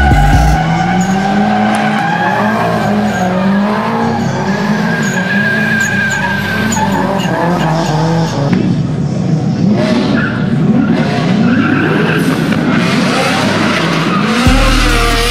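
Drift cars sliding: engines revving up and down hard, with tyres squealing and skidding under wheelspin. A deep low rumble comes in near the end.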